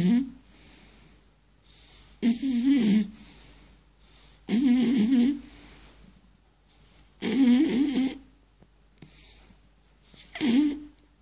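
Beagle snoring: four loud, wavering snores about two and a half seconds apart, with a softer breath between each.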